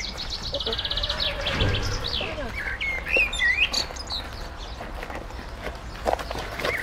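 Songbirds chirping: short whistled notes that glide up and down, with a fast buzzy trill near the start.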